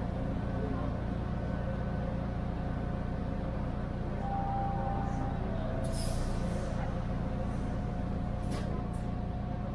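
TTC T1 subway train standing at a station platform: a steady low hum from its equipment, with short hisses of air about six and eight and a half seconds in.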